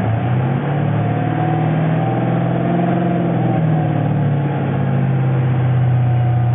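A 5.7-litre Hemi V8 running in park, heard through a Magnaflow cat-back exhaust with Magnaflow mufflers: a loud, steady, deep exhaust note, its pitch swaying slightly in the first few seconds before settling.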